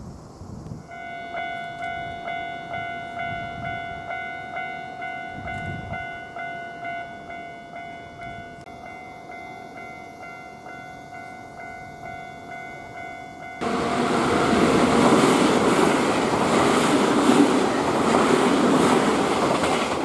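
Japanese level-crossing warning bell ringing in a steady rhythm of about one and a half strokes a second. About 14 s in, a Nankai Series 1000 electric train comes through the crossing with a loud, steady rumble that drowns out the bell.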